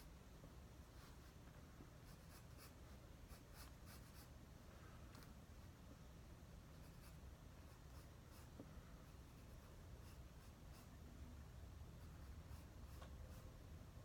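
Faint scratching strokes of a drawing tool on paper: quick strokes in the first few seconds, then sparser ones, over a steady low hum.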